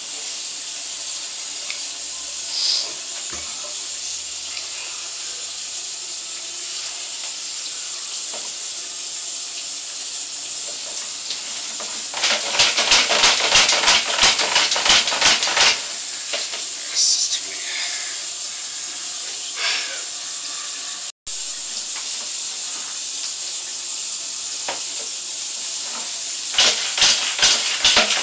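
Steady hiss from a sewer inspection camera's audio as it is pushed and pulled inside a cast iron drain line. About halfway through comes a few seconds of rapid clicking and rattling, and another burst comes near the end.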